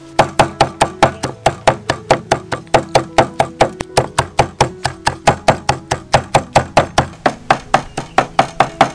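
A cleaver chopping soaked dried red chilies on a thick wooden chopping board: rapid, even knocks of the blade on the wood, about four a second.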